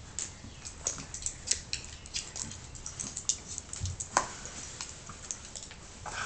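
A galgo and a beagle play-wrestling on a wooden floor: scattered scuffling and light clicks of claws and bodies on the floorboards, with a soft thump and a brief louder sound a little after four seconds in.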